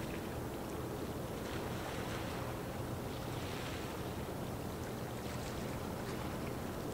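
Steady sea-shore ambience: an even low hum under wind and water noise.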